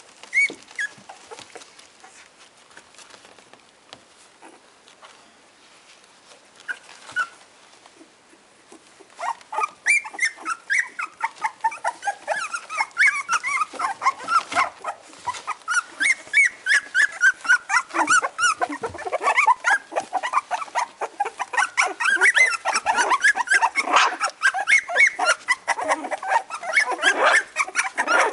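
A litter of two-and-a-half-week-old puppies whimpering and squealing: a few isolated cries at first, then from about nine seconds in a near-constant chorus of short, high-pitched squeaks that grows busier toward the end.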